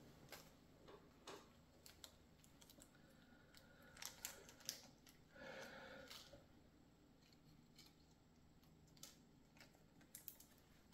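Near silence with sparse faint clicks and a brief rustle: small screws and plastic model parts being handled.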